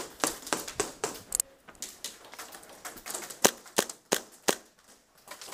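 Airsoft guns firing a scattered series of sharp single cracks, about a dozen in all, with a lull of a couple of seconds in the middle.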